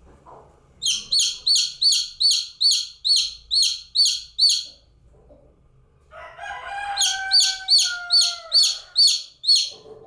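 A newly hatched domestic chick peeping loudly in two runs of quick, high, downward-sweeping chirps, about three a second, with a short pause between the runs. This is the repeated call a chick gives when it is on its own. A lower, drawn-out call that falls slightly in pitch sounds under the start of the second run.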